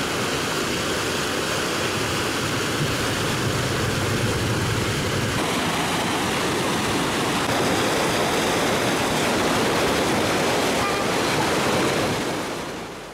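Swollen, muddy flood stream rushing at high flow after heavy rain, a loud steady wash of churning water that fades out near the end.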